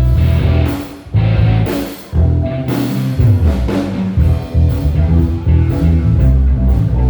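Live band playing an instrumental passage, with electric guitar over bass and drum kit; the band cuts out briefly twice, about one and two seconds in, before carrying on.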